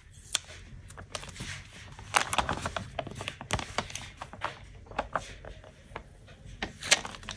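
A smartphone and its box packaging being handled by hand: irregular light clicks, taps and rustles.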